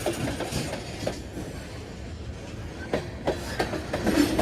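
Freight cars of a Union Pacific manifest train rolling past, a steady rumble with wheels clacking irregularly over rail joints, and a faint wheel squeal near the end.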